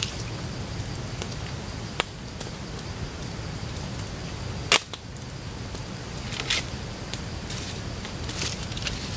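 Wood campfire crackling, with a few sharp pops from the burning sticks, the loudest about halfway through. A thin steady insect drone runs behind it.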